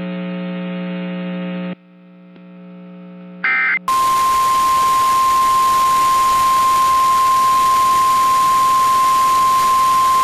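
A steady low electrical buzz from the broadcast cuts off under two seconds in. After a brief electronic chirp, the steady 1050 Hz National Weather Service warning alarm tone comes on about four seconds in over radio hiss and holds, announcing a severe thunderstorm warning.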